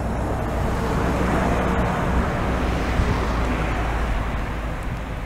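Airbus A320-214 with CFM56 jet engines at takeoff thrust as it lifts off and climbs away: steady, loud jet noise that eases slightly near the end.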